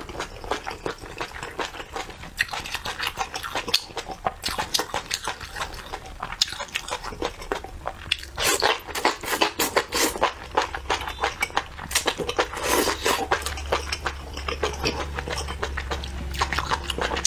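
Close-miked chewing of chili-oil-soaked enoki mushrooms: a dense run of wet, crunchy mouth clicks, with bundles of strands sucked in a few times, most strongly about eight to ten seconds in.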